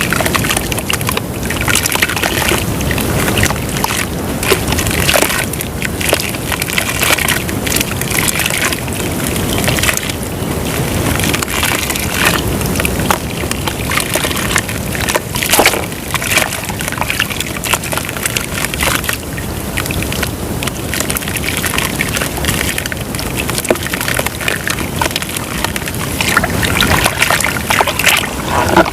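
Lumps of white dirt crumbling and breaking apart in water: continuous sloshing and crackling with many small snaps and a few sharper cracks.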